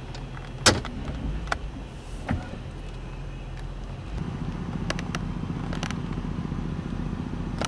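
Car moving slowly, heard from inside the cabin: a steady low engine and road hum that grows louder about four seconds in, with a few sharp clicks in the first few seconds.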